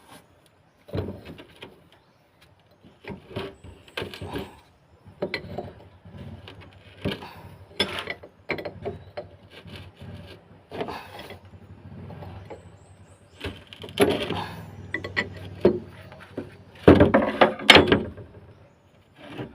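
Irregular scraping, rubbing and knocking, as of metal parts or tools being handled, over a faint steady low hum; the knocks grow louder near the end.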